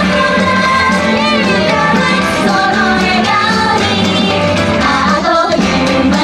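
Upbeat Japanese idol pop song: young women singing together into handheld microphones over amplified backing music.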